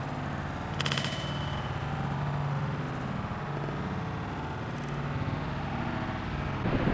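A disc golf disc striking a metal chain basket about a second in: a short metallic clatter with a brief high ringing, over a steady low rumble.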